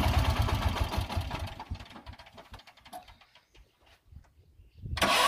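Auto-rickshaw engine running, switched off about a second in and dying away to near silence, then started again on its electric starter about five seconds in: one of a long run of repeated starts to drain its battery.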